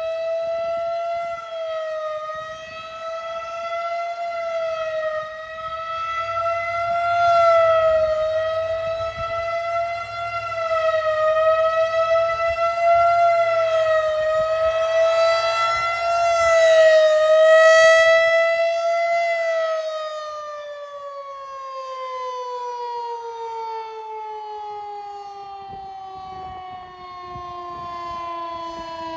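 Federal Signal 2001-130 rotating outdoor warning siren sounding its monthly fast-wail test, the pitch wavering up and down every couple of seconds and the loudness swelling and fading as it sweeps around. About two-thirds of the way through, the signal ends and the siren winds down in a long falling glide.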